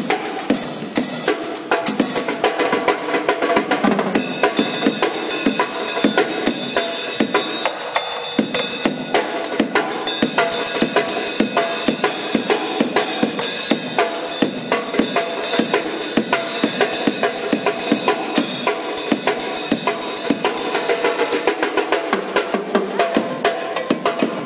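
A drum kit played live: a fast, steady beat of snare drum and bass drum with rimshots, the hits coming several times a second without a break.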